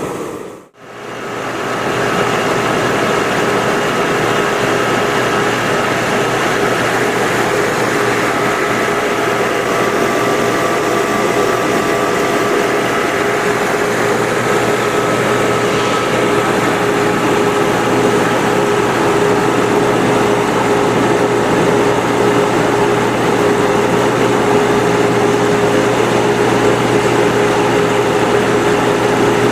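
Steady machine running: an even mechanical hum with a couple of held tones and hiss. It cuts out sharply for a moment under a second in, then resumes unchanged.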